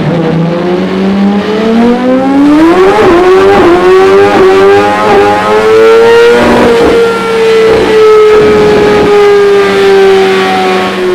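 Suzuki GSX-R1000 inline-four engine running through a Dominator aftermarket full exhaust. The revs climb steadily for about six seconds, then slowly ease off while it is still running.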